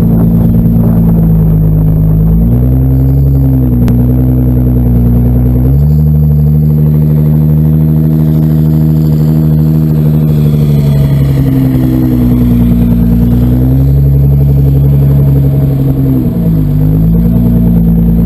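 Nissan GT-R's engine idling while the car sits stationary, loud and close, its idle speed stepping up and down a little several times.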